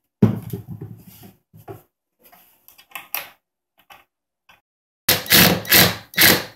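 Ridgid cordless drill driving screws through metal brackets into MDF with no pilot holes: a short run of the motor about a quarter second in, a few light clicks and knocks of parts being handled, then a louder run of about a second and a half near the end as a screw is driven home.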